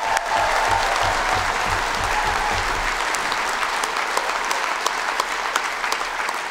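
Audience applauding steadily, a dense even clapping with no voices over it.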